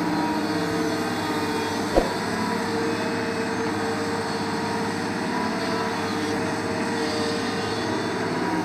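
Doosan DX225LCA tracked excavator's diesel engine running steadily under load as it dumps and swings, a constant drone with several steady tones. A single sharp knock about two seconds in.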